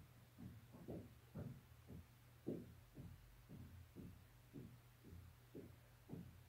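Faint, soft low thumps repeating about twice a second, a little uneven, over a steady low electrical hum.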